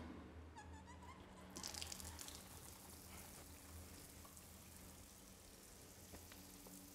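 Near silence: faint water at a bathhouse wash tap and hand shower, a brief splash about one and a half seconds in, then a few faint drips, over a low steady hum. A faint short squeak comes just before the splash.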